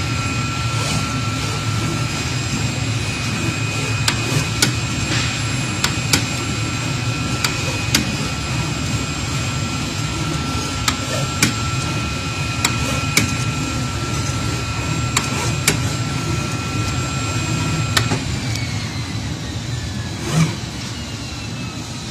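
CNC flatbed cutting machine plotting with its marker-pen head: a steady low machine hum with a high steady whine, and sharp clicks every second or two. About 18 s in the whine gives way to sliding tones, and a single thump comes a couple of seconds later.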